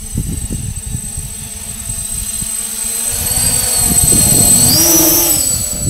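Hexacopter's electric motors and propellers whirring, rising in pitch and growing louder about four to five seconds in as it climbs away, over a steady high whine and a gusty low rumble.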